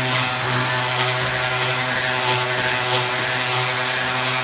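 Random orbital sander with 60-grit paper running steadily against the cooking surface of a cast iron skillet: a constant motor hum under a dense, gritty hiss of abrasive on iron.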